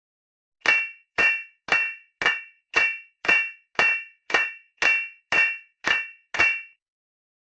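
A hammer striking a sword blade on an anvil in sword forging: twelve even metallic clangs, about two a second, each ringing briefly before the next blow.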